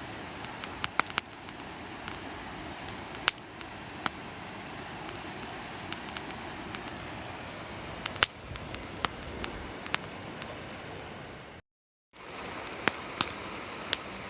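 Wood campfire burning with a steady hiss and scattered sharp crackles and pops at irregular intervals. The sound cuts out for a moment about twelve seconds in, then the crackling resumes.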